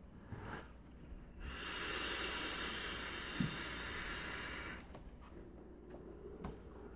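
A long draw on a vape with a rebuildable dripping atomizer: a steady hiss of air pulled through the atomizer for about three seconds, which stops fairly suddenly. It is followed by a soft exhale of vapor.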